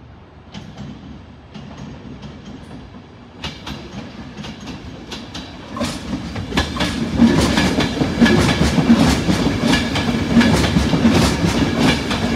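LNER InterCity 225 train, led by its Mark 4 driving van trailer, approaching and running past: the wheels click over rail joints and points. The clicks grow denser and louder for the first seven seconds or so, then become a steady rhythmic clatter as the coaches go by.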